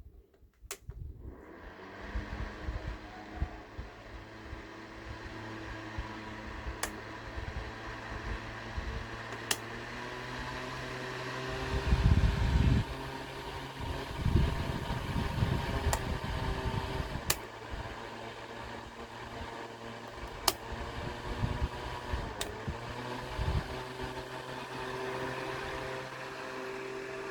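Small battery-powered electric fan starting up about a second in and then running with a steady motor hum and whir. A few sharp clicks and some low bumps come in the middle.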